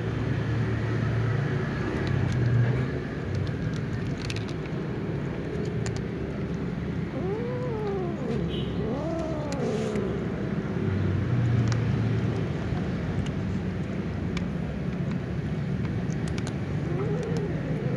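A cat meowing twice in long calls that rise and fall about halfway through, and once more near the end, while cats crunch dry kibble with scattered clicks, over a steady low rumble.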